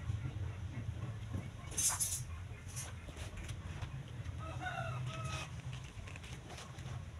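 Domestic chickens calling in the background, with a pitched call lasting about a second near the middle, over a steady low rumble. A short sharp noise about two seconds in is the loudest moment.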